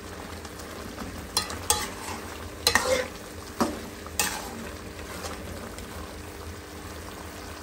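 Chicken and tomatoes frying in ghee in a metal karahi, a steady sizzle as the watery tomato juice is cooked down. A metal spoon stirs and scrapes through the pieces, knocking against the pan about five times in the first half.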